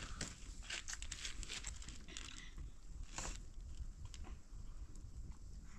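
Orange peel being torn off by hand: scattered short crackles and tearing sounds, the loudest about three seconds in.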